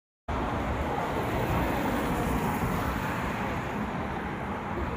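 Steady city street traffic noise: cars running along a wide avenue, a continuous rumble, starting after a split second of silence.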